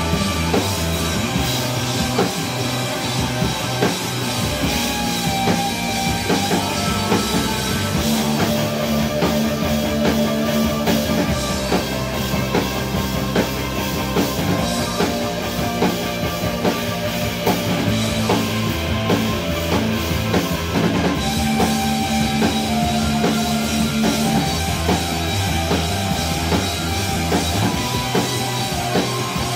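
Rock band playing live: electric guitars over a drum kit, with regular drum hits and held low notes.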